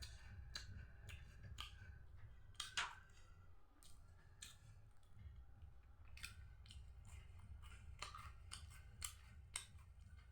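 Marie Gold biscuits being bitten and chewed: quiet, irregular crisp crunches, the loudest about three seconds in.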